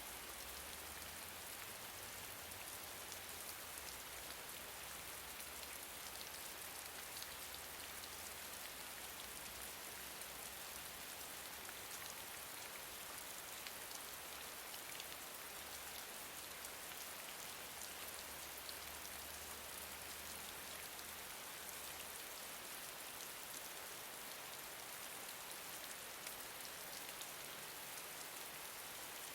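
Gentle rain falling steadily, a constant hiss of many small drops with fine individual patters.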